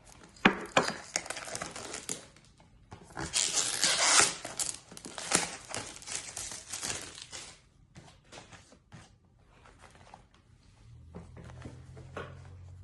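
A product box being unwrapped: plastic wrap and packaging crinkling and tearing, with the heaviest, loudest rustle in the middle, and cardboard handling knocks and clicks around it. A steady low hum comes in near the end.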